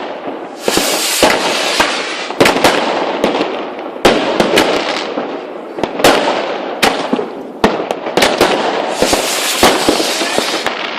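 New Year's Eve fireworks and firecrackers going off in a steady barrage: many sharp bangs one after another, with stretches of dense crackling about a second in and again near the end.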